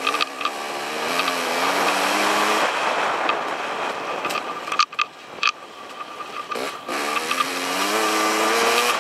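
Dirt bike engine being ridden on a rough trail, its pitch climbing twice as the throttle is opened, with a lull off the throttle in the middle and a few sharp knocks from the bike over the ground there.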